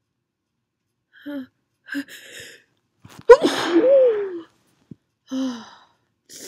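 A person's sneeze set off by sniffing strong cologne: two short gasping breaths build up, then one loud, sudden sneeze about three seconds in, followed by a couple of short breaths.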